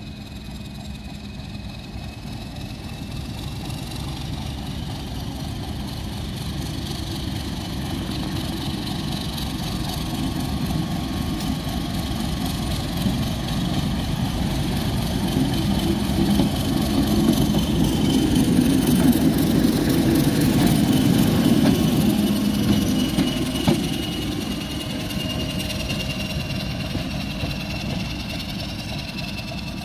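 Class 31 diesel-electric locomotive running light engine, its English Electric diesel engine growing louder as it approaches, loudest at about 18 to 22 seconds in as it passes, then fading as it moves away. A thin high whine sits over the engine note.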